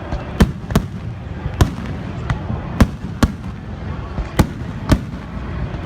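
Fireworks going off: about eight sharp bangs at uneven spacing over a steady low rumble.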